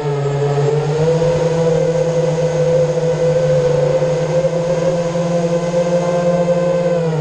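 Eachine Wizard X220 racing quadcopter's brushless motors and propellers whining steadily, heard through its onboard camera. The pitch sags briefly just after the start as the throttle eases, climbs back and holds, then sags again near the end.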